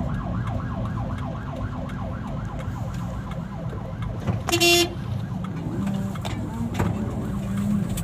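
A fast yelping siren, rising and falling about four times a second, fading out over the first three seconds above steady traffic and engine noise. About four and a half seconds in comes a short, loud vehicle horn blast.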